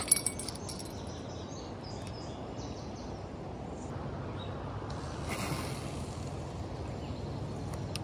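Steady rush of river rapids, with a couple of sharp clicks right at the start.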